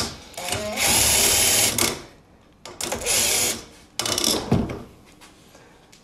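Makita cordless impact driver with a half-inch socket backing off the tension nut on a garage door opener rail, slackening the drive cable: two runs of about a second each, then a shorter, quieter one.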